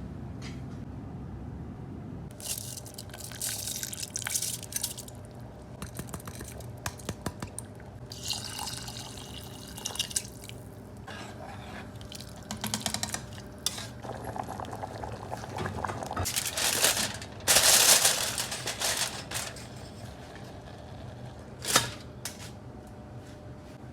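Kitchen cooking sounds: liquid pouring and dripping, with clinks of utensils against pots and a louder burst of rushing noise about three quarters of the way through.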